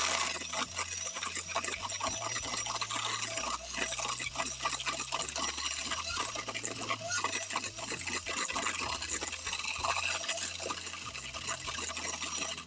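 Seven-speed electric hand mixer running, its two wire beaters creaming margarine and sugar in a stainless steel bowl: a steady motor whir with a dense, rapid rattle of the beaters knocking and scraping against the metal bowl.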